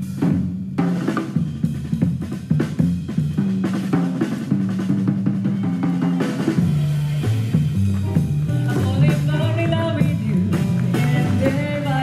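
Live jazz band playing, with drum kit and a bass line. A melody instrument comes in about halfway through.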